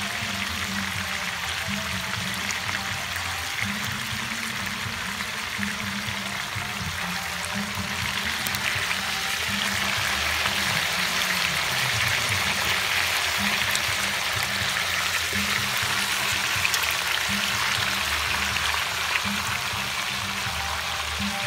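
Background music with a low bass line, over a steady water-like hiss that gets louder about eight seconds in, as liquid is stirred and splashed around a whole chicken in a cooking pot.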